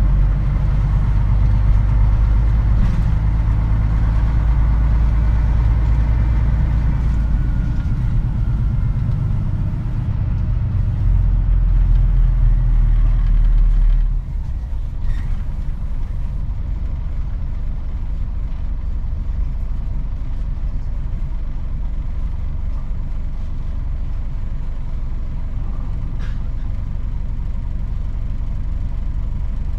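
Diesel engine of a Mitsubishi Fuso Aero Star KC-MP747 city bus heard from inside the cabin, running under load with a heavy low rumble and faint whine. About halfway through the engine note drops suddenly as the throttle comes off, and it runs on steadily at a lower level.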